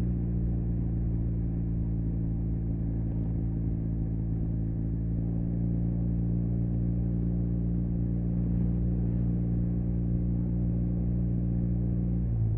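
Yamaha TMAX 560's parallel-twin engine idling steadily through an Akrapovic carbon full-system exhaust, a low, even exhaust note.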